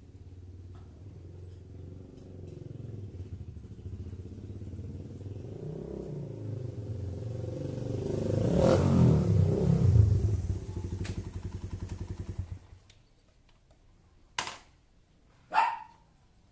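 Motorcycle engine approaching and growing steadily louder, its pitch shifting as it slows near the end, then stopping abruptly about three-quarters of the way through. Two sharp clicks follow.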